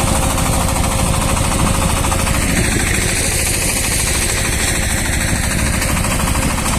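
Shifeng SF-240 minitractor's single-cylinder diesel engine running steadily under load while it drives a rear-mounted rotary tiller through garden soil, with a fast, even clatter.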